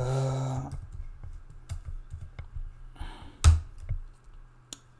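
Computer keyboard keystrokes: scattered sharp key clicks, with one louder key press about three and a half seconds in. A short hummed voice sounds at the very start.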